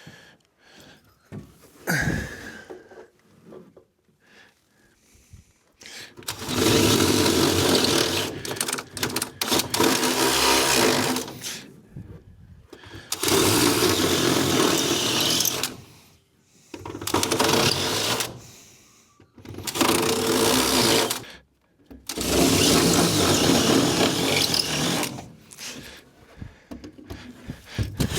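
Power drill boring holes through a truck deck, running in runs of two to five seconds with short pauses between them, after a few seconds of light handling clicks.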